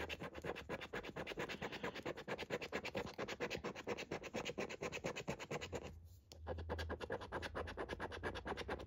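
Quick back-and-forth scratching of the latex coating off a paper scratchcard, about seven or eight strokes a second, with a brief pause about six seconds in.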